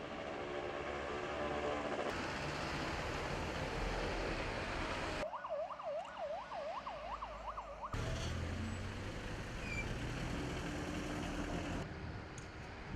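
Street traffic noise, with an emergency vehicle's siren cutting in about five seconds in: a fast up-and-down yelp, about three cycles a second, that stops abruptly after about three seconds.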